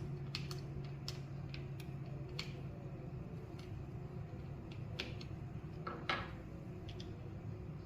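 Irregular small clicks and taps of metal and plastic clipper parts being handled during reassembly of an Andis rotary-motor clipper, with a short scrape or rattle about six seconds in.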